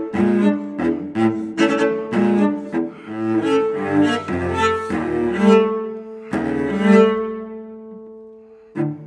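Solo cello played with the bow: quick, sharply attacked notes, often two or more sounding at once, then a few long held notes that ring and die away. A new stroke starts again near the end.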